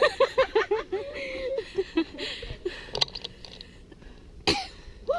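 A person's voice in a quick run of short pitched bursts, about six a second, then scattered quieter vocal sounds and a sharp cough-like burst near the end.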